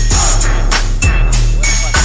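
Hip-hop beat playing without vocals: deep bass notes under sharp drum hits.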